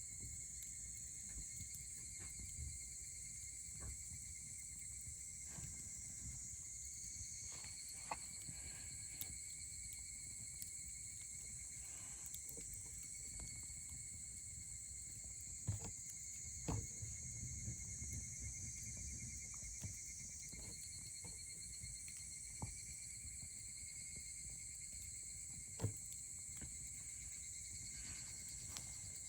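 Wood campfire crackling softly, with scattered small pops and a few sharper ones, over a steady high-pitched chirring of insects.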